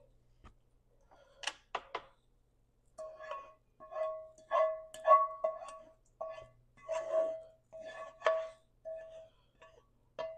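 A spoon scraping thick gravy out of a metal pan held over a foil tray, a few clicks first, then about a dozen short scrapes, each with a ringing tone from the pan.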